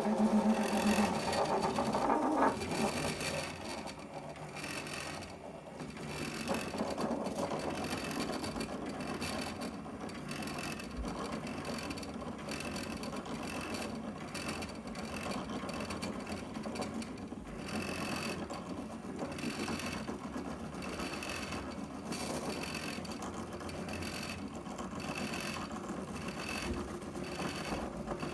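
Small stepper motors of a homemade 3D printer built from CD-ROM drive mechanisms buzzing and chattering as they drive the print head and bed through short, rapid moves during a test print. There is louder handling noise in the first couple of seconds.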